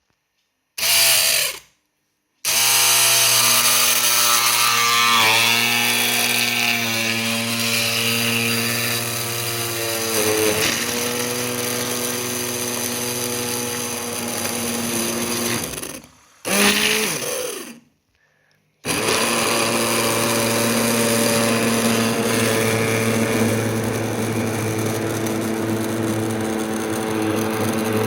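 Small electric motor running loud in several bursts: a short one, a long run, another short one and a second long run. Its pitch sags and recovers now and then, as under changing load.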